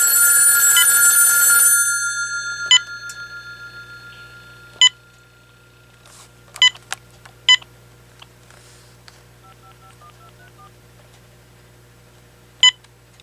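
AT&T 7720 cordless phone sounding a loud electronic ring tone lasting under two seconds, which fades away. Short single key beeps follow every second or two as its buttons are pressed.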